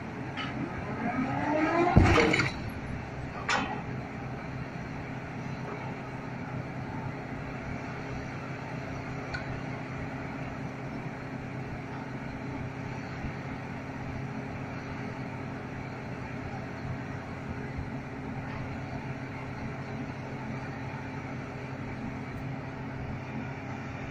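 A crawler crane drops its dynamic-compaction weight in free fall. The hoist winch whines, rising in pitch as the weight speeds up, then there is a heavy thud as it strikes the ground about two seconds in, and a sharp clank about a second and a half later. After that the crane's diesel engine runs steadily.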